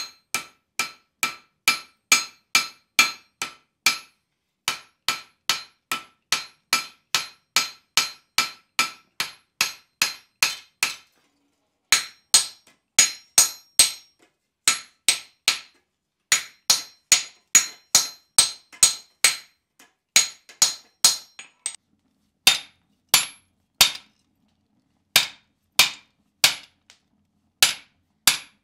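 Blacksmith's hand hammer striking red-hot steel on an anvil, a steady run of sharp ringing blows about three a second with a few brief pauses. This is the hot steel being spread out wide for a shoe horn's blade.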